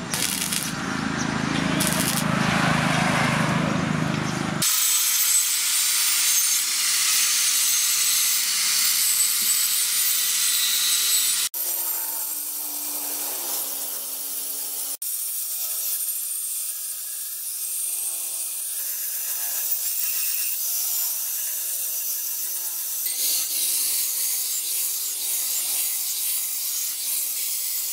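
Stick-welding arc crackling for the first few seconds, then an electric angle grinder grinding steel with a steady high hiss: first the weld bead where the tubular handle socket joins the leaf-spring machete, then along the blade, in several joined stretches.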